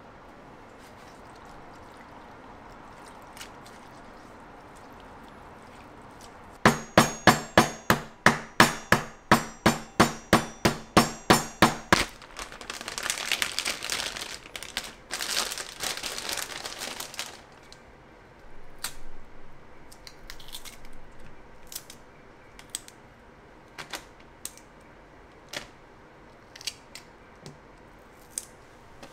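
Cucumbers being smashed on a wooden cutting board: about twenty quick blows, about four a second. A plastic bag crinkles next, and near the end come sparse small snaps as the smashed cucumber is broken apart by hand.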